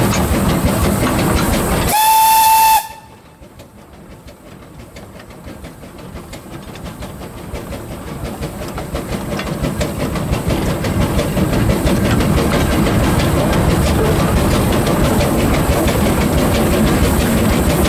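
The 1924 narrow-gauge steam locomotive Wee Georgie Wood sounds its steam whistle once, a steady tone a little under a second long, heard from the footplate over the running noise of the engine and the wheels on the track. Right after the whistle the running noise drops sharply, then builds back up gradually over several seconds to a steady clatter of wheels.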